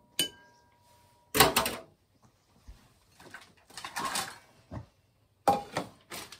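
Kitchen handling noises. A short ringing clink comes first, then a few sharp knocks and clatters with some rustling in between, as a cabinet below the counter is opened and a plate is set down on the counter.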